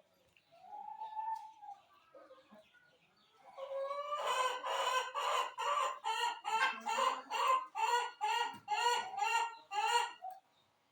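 Chickens clucking: a faint call about half a second in, then from about four seconds a loud, rapid run of short clucks, two to three a second, that stops shortly before the end.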